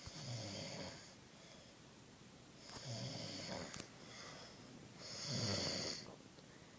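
A man snoring in his sleep: three snores about two and a half seconds apart.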